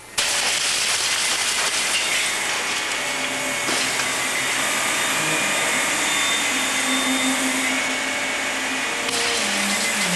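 Heavy demolition machinery running loud and steady, its engine note shifting, over the crunching noise of a building being torn down. The sound changes abruptly twice.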